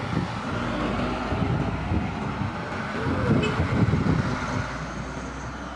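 A heavy truck's engine running as it drives past, with a low rumble that is loudest a little past the middle.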